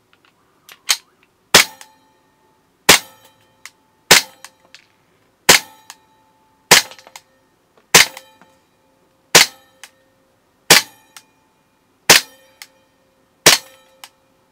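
ASG CZ SP-01 Shadow gas blowback airsoft pistol (KJ Works-made) firing, its slide cycling with a sharp crack on each shot. Ten shots, evenly spaced a little over a second apart. Each is followed by a short metallic ring.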